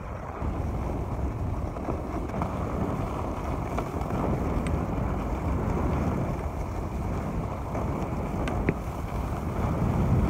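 Steady wind rush over the microphone of a skier moving downhill, mixed with the scrape of skis on packed, groomed snow.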